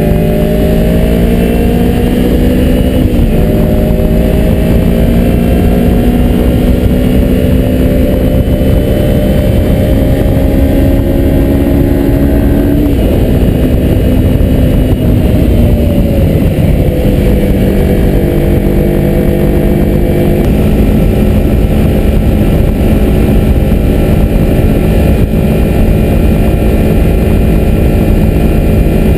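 A 2003 Kawasaki Ninja 250's parallel-twin engine runs at road speed. Its pitch climbs, drops suddenly about three seconds in and again near thirteen seconds as it shifts up, then eases lower and holds steady. Heavy wind rush covers the microphone throughout.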